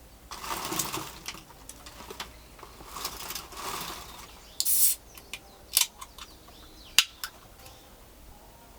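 Rustling handling noises in two stretches, then a short hissing scrape and a few sharp clicks or taps.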